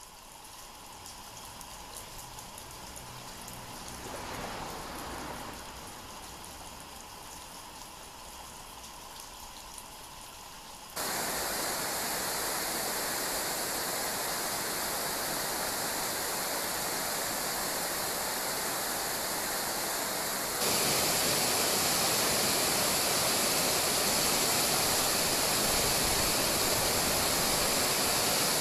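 Steady rushing of a shallow river, with no pitch or rhythm. It starts faint, jumps louder about 11 seconds in, and louder and hissier again near the end, where the water tumbles over concrete blocks in rapids.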